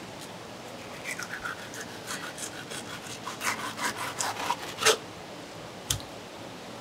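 A long fish knife scraping in quick back-and-forth strokes between a sea bass fillet's skin and a plastic cutting board as the skin is cut away, the strokes growing louder toward the end. A single sharp knock comes about six seconds in.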